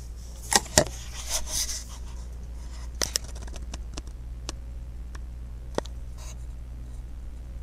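Handling noise close to the microphone: a few sharp clicks and knocks with a brief rustle about a second in, over a steady low hum.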